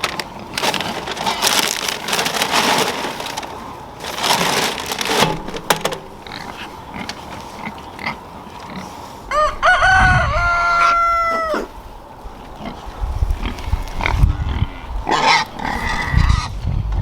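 A rooster crowing once, about ten seconds in: a few short rising notes and then a long held note that drops away at the end. Earlier there are bursts of rustling, scraping noise.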